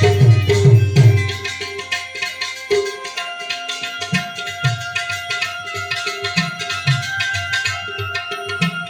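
Instrumental passage of Gujarati devotional bhajan music: tabla playing a rhythm under held melody notes. Heavy drum beats for about the first second, after which the drumming drops to softer, spaced tabla strokes.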